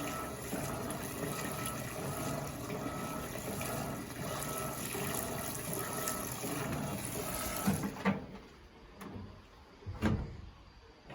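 Washing machine with water rushing through it, a steady noise that stops abruptly about eight seconds in, followed by a few short knocks.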